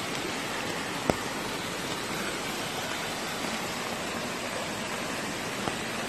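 Steady, even rush of a waterfall pouring down a rock face into a pool, with one short sharp click about a second in.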